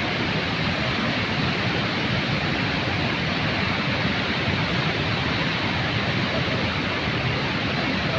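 Floodwater of the Mullai Periyar river in spate: a steady, unbroken rush of fast-flowing water.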